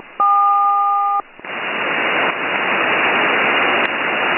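Second tone pair of a SELCAL call (K–Q, completing code DM-KQ) on an HF upper-sideband aircraft channel: two steady tones sound together for about a second, just after a brief gap. This tone pair is what triggers the selective-calling alert in that aircraft's cockpit. It then gives way to the steady hiss of the open HF channel.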